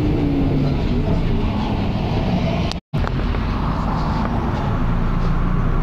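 Volvo B10BLE bus's rear-mounted six-cylinder diesel running, with the steady drone of its engine and cooling fan and a slowly falling tone at the start. The sound drops out completely for a moment just under three seconds in, then resumes.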